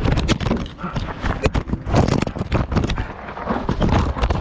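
Running footsteps on dirt, a quick, uneven series of knocks and thuds.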